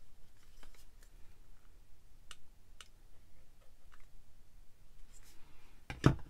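A few faint clicks from a handheld precision glue press as its trigger is squeezed to dispense liquid glue, then one louder thump near the end as the tool is set down into its plastic stand.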